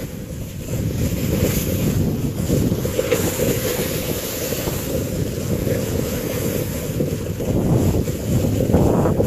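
Wind buffeting the camera's microphone during a fast snowboard descent, a steady low rumble, with the hiss of the board sliding over snow underneath; it grows a little louder near the end.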